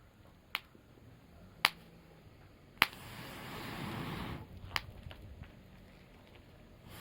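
Burning wood in a campfire crackling, with four sharp, separate pops and a brief rushing swell of noise in the middle.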